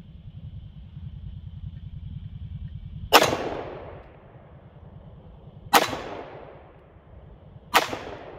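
Three single shots from a Smith & Wesson M&P 5.7 pistol firing 5.7x28mm green-tip rounds, the first about three seconds in and the others two to two and a half seconds apart, each trailing off in a short echo.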